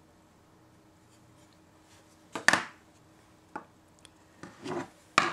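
Small camera-mount accessory parts being handled: a few sharp clicks and some rubbing, the first click about two and a half seconds in after a quiet start.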